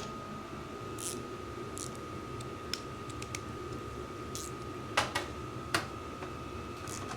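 Scattered light clicks and taps of hand tools and metal parts being handled while a lawn mower engine cover is being unbolted, a couple of sharper clicks about five seconds in. A faint steady high whine runs underneath.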